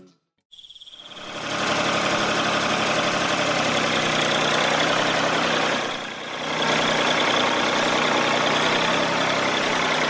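A motor running steadily with a high whine over it. It fades in after a brief silence and dips once for a moment about six seconds in.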